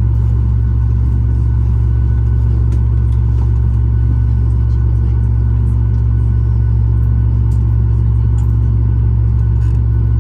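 Steady low drone inside a Boeing 737 MAX 8's passenger cabin before takeoff, with faint steady whines above it and a few light clicks.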